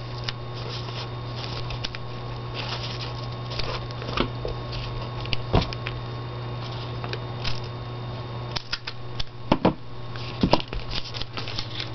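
Light rustling and scattered clicks of a vellum paper piece being handled and stuck down with Scotch vellum adhesive, with a few sharper clicks, over a steady low electrical hum.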